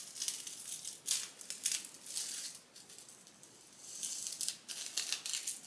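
Hands rustling and scratching against hair and a wig's elastic band as the band is pulled off the head. The sound comes in short, irregular bursts of hiss with a quieter pause around the middle.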